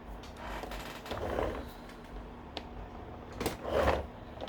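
Hard plastic toy parts handled and fitted together: G.I. Joe Trident missiles being clicked onto the BUGG toy vehicle, with light rubbing, a sharp click about two and a half seconds in, and two louder knocks near the end.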